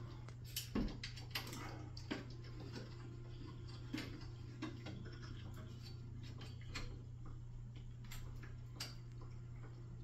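Irregular light clicks and taps of a small hand tool working the bolts of a bakers rack's cross stabilizer as it is tightened, over a steady low hum.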